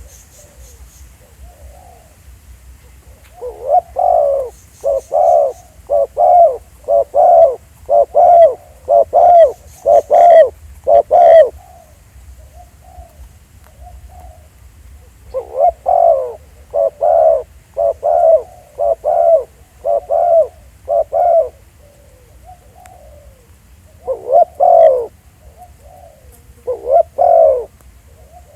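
Spotted doves cooing: runs of loud coos repeated about one and a half times a second, with softer coos in the pauses between the runs.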